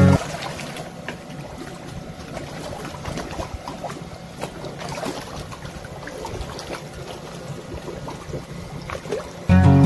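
Water trickling and splashing in a shallow concrete fish pond, a steady wash with small irregular splashes.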